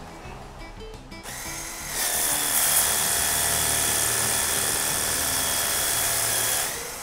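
Makita-compatible cordless pressure washer running and spraying water onto a wall panel: a steady spray hiss with a motor whine. It builds up about a second in and cuts off near the end. Background music plays throughout.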